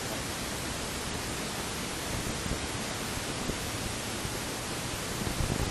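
Steady, even rushing noise inside the cabin of a Cessna 172, its four-cylinder engine and propeller idling on the ramp.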